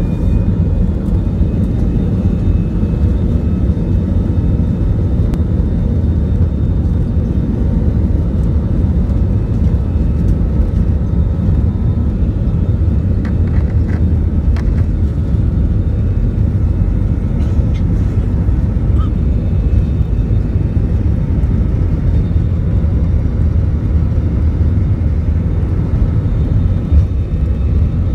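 Airbus A320 cabin noise from a seat over the wing while the jet moves on the ground: a steady low rumble of the engines and wheels, with a few light clicks and rattles partway through.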